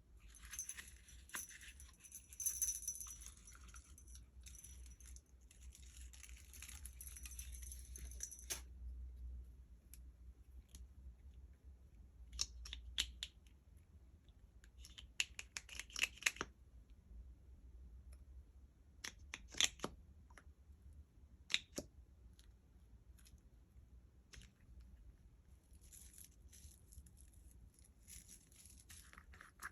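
Slime being worked by hand: faint sticky, crackling squelches as it is pressed and stretched, with a few sharp clicks and taps in the middle stretch.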